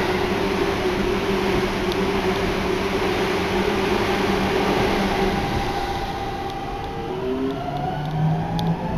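Seibu Ikebukuro Line electric train running, a heavy rumble and hiss with the steady whine of its traction motors; the whine shifts and rises in pitch in the last couple of seconds as the train's speed changes.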